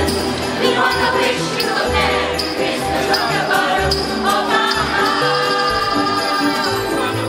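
A Christmas song with jingle bells shaken throughout, a steady bass line and a group of voices singing together.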